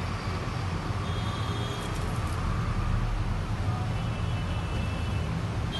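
Steady low background rumble, with a few faint thin high tones about one and four seconds in.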